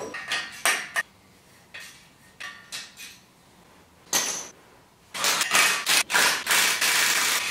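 Metal clinks and knocks from exhaust parts and tools, then a longer run of scraping and rattling from about five seconds in as a motorcycle's stainless exhaust pipe is worked loose and pulled off.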